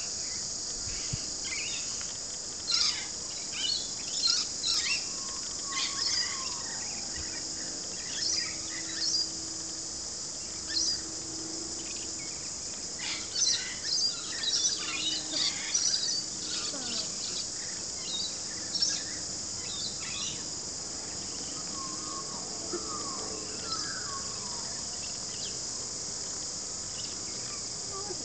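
A steady high-pitched insect chorus, with birds chirping in short calls throughout and a few falling whistles. The chirps are busiest in the middle of the stretch.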